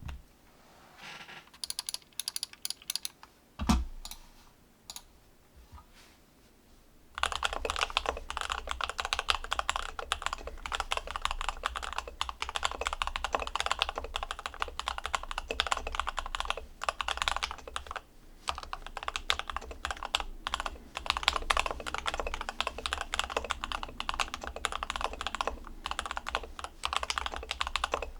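Custom mechanical keyboard being typed on: an LZ-GH aluminium-plate board with lubed JWK Alpaca linear switches, PBT keycaps and a sorbothane sheet damping the case. A few scattered keystrokes and one louder, deeper thump about four seconds in, then steady fast typing from about seven seconds on.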